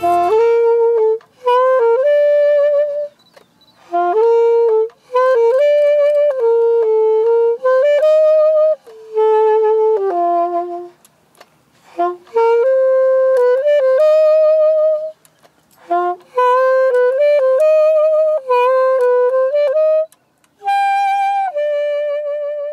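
Unaccompanied saxophone playing a slow melody in short phrases separated by brief pauses, its held notes wavering with vibrato. It ends on a long held note.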